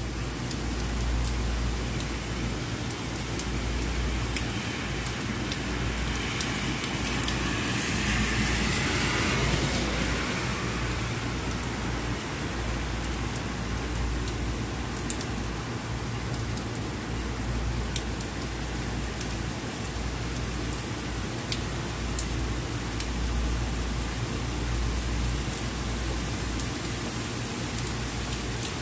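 Steady rain falling on a wet street, with a few drips ticking close by. The hiss swells briefly about a third of the way through.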